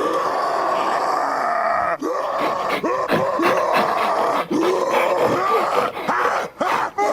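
Primal creature sound effects: a longer growl, then a quick run of short grunts and growls, one after another with brief gaps.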